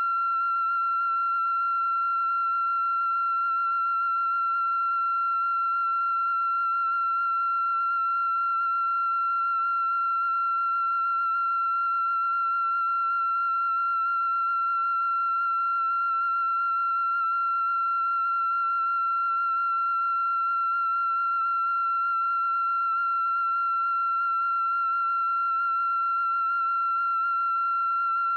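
A steady, unbroken high-pitched electronic tone, held at one pitch without change.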